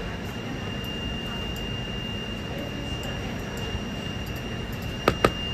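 Steady rushing background noise with a constant high-pitched whine, broken by two sharp clicks a fraction of a second apart near the end.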